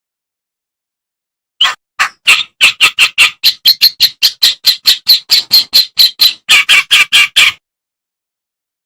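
Kerak basi, a reed warbler, singing a fast run of harsh, chattering notes, about five a second. The song starts about a second and a half in and stops suddenly near the end.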